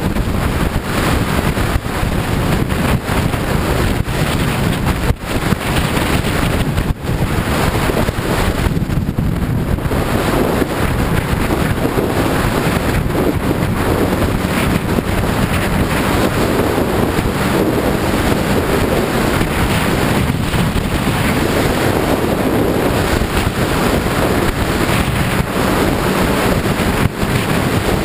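Steady wind noise rushing over the microphone while a Suzuki GSX-R sport bike is ridden at speed, with motorcycle and road noise mixed in underneath.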